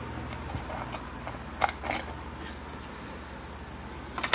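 A few light metallic clicks and clinks of small carburetor parts and a screwdriver being handled on a workbench, two close together about a second and a half in and more near the end, over a steady high-pitched drone.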